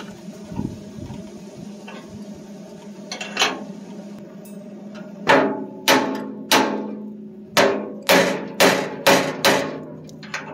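Hammer striking steel on a tractor loader bucket. A couple of light taps come about three seconds in, then about eight hard, ringing blows follow at roughly two a second through the second half.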